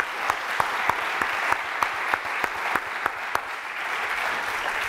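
Audience applauding, with one set of claps standing out at about three a second.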